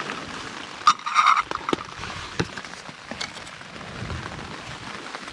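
Lid of a small camping cook pot being handled: a short scrape about a second in and a few light clicks and knocks, over a faint steady hiss.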